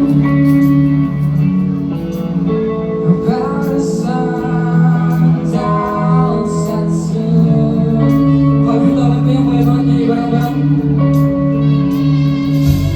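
Live band music: electric guitar, bass and drums playing a song, with a singer's voice over them.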